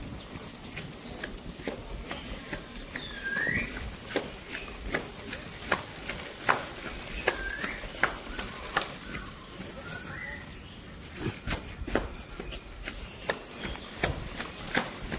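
Three-wheeled baby stroller rolling over a rough concrete alley as it is pulled along, with a low rumble and irregular clicks and knocks, about one or two a second. A few short rising chirps come in now and then.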